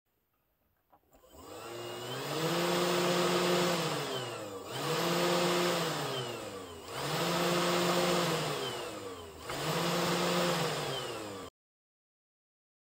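500W air-cooled DC CNC spindle motor running under its speed-control driver, whining as it speeds up, holds speed and slows down four times. The sound cuts off suddenly near the end.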